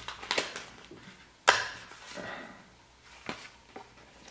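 Paper and plastic packaging being handled: short rustles and crinkles with scattered sharp clicks. The loudest is a single sharp snap about a second and a half in.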